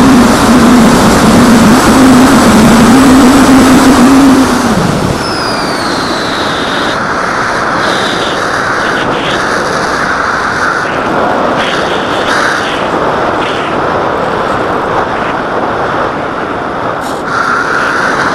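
Electric motor and propeller of an AXN RC foam plane, heard through its onboard camera, running at steady throttle, then cut about four and a half seconds in. After that, only rushing wind as the plane glides down, with faint high whines.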